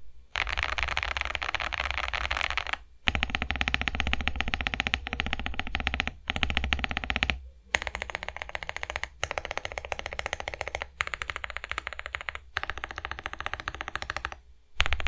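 Fast typing on a plateless KBD67 Lite R3 mechanical keyboard with Boba U4T tactile switches lubed with Tribosys 3203, PE foam and case foam fitted. It is a continuous stream of keystrokes, broken by a few brief pauses.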